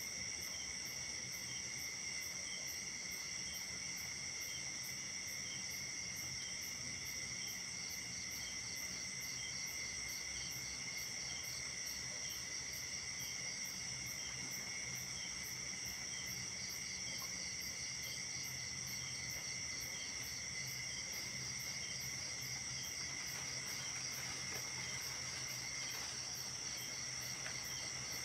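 Night chorus of crickets and other insects: steady high-pitched trilling, with a high pulsing call repeating about twice a second, over a faint low hum.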